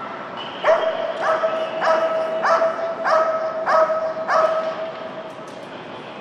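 Dog barking about seven times in a quick, even series, roughly two barks a second, each bark ringing on in a large echoing hall. The barking stops near the end.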